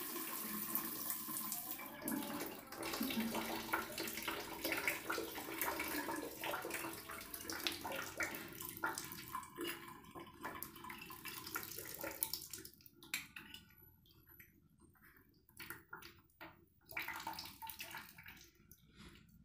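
Water running from a newly fitted bathroom wall tap, an even rush that fades out about twelve seconds in. A few faint clicks and knocks follow as the faucet is handled and tightened to stop a leak at its base.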